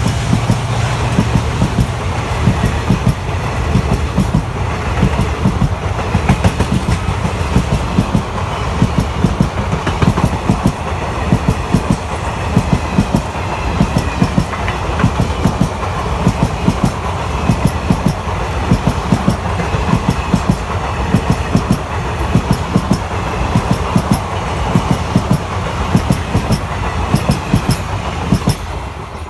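Train running past at speed, its wheels clattering rapidly and rhythmically over the rail joints; the clatter fades near the end.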